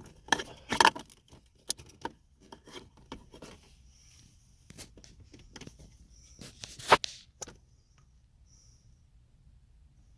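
Small clicks, rubs and scrapes of wires and tools being handled while the wires are readied for soldering, with one sharper click about seven seconds in; the handling stops at about seven and a half seconds.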